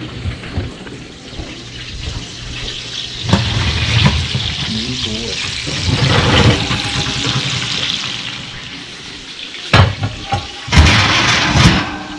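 Hot fat sizzling in a cast-iron Dutch oven of bacon-wrapped quail as it comes out of the oven, a steady hiss, with metal knocks from the oven rack and pot about three seconds in, near ten seconds, and a louder clatter near the end.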